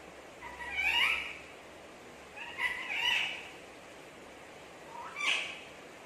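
Rose-ringed parakeet giving three short vocal sounds about two seconds apart, each sliding in pitch.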